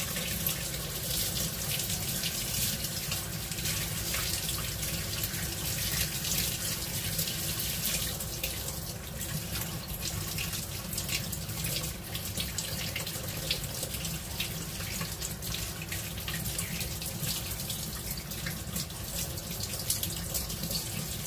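Kitchen tap running steadily into a stainless steel sink while hands rinse and rub pieces of fish under the stream, the water splashing and spattering.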